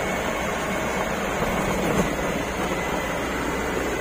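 Mitsubishi Canter truck's diesel engine running and the truck rolling over a dirt road, heard from inside the cab as a steady noise, with a single light knock about two seconds in.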